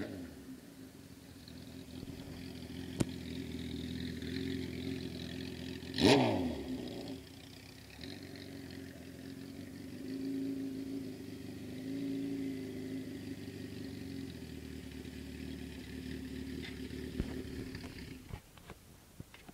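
1974 Honda CB750 chopper's air-cooled inline-four engine running, with a few blips of the throttle, then shut off about eighteen seconds in. About six seconds in there is a sudden loud burst whose pitch falls quickly.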